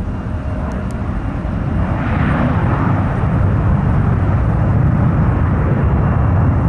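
Jet airliner engines, the Boeing C-40 Clipper's twin CFM56-7B turbofans, as a loud low rumble that grows steadily louder, with a rushing swell coming in about two seconds in.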